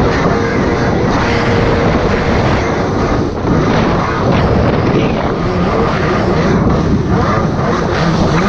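Jet ski engine running steadily, a loud continuous drone mixed with a rushing noise.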